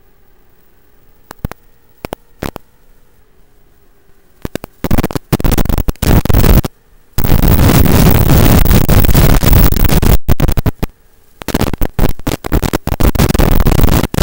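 Radio static from a weak analog FPV video link, recorded by the goggles. At first there is only a faint hum with wavering tones. From about five seconds in, loud bursts of hiss break in, then a few seconds of unbroken static. The bursts stutter on again near the end as the signal keeps dropping out.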